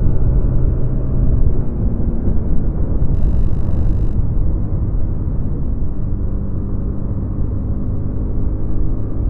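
Honda Dio scooter's stock single-cylinder engine running steadily on the move, under a heavy low rumble. A brief high electronic buzz about three seconds in.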